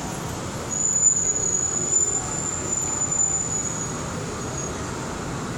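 Model train running on a layout: a steady rumble with a thin, high-pitched whine that starts about a second in and fades out near the end.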